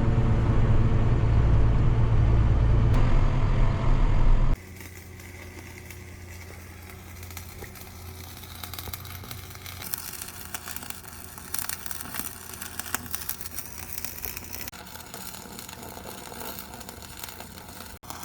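A motor vehicle's engine running with a loud low rumble that cuts off abruptly about four and a half seconds in. A much quieter steady low hum with light crackling follows.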